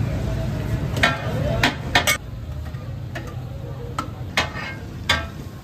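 Metal spatulas striking and scraping a large iron tawa griddle while fish katakat is chopped and turned: about seven sharp, ringing clangs at an uneven pace, over frying and a low background rumble.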